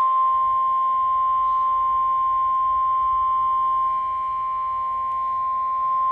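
NOAA Weather Radio 1050 Hz warning alarm tone: one steady, unbroken tone received over a weather radio, the attention signal that announces a warning message is about to be read.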